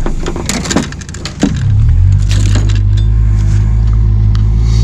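Knocks and rattles, then about a second and a half in an engine comes up to speed and runs with a loud, steady low drone.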